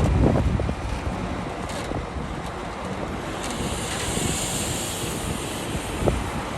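Heavy diesel earthmoving machinery running, a low rumble under wind buffeting the microphone, with a higher hiss for a couple of seconds around the middle.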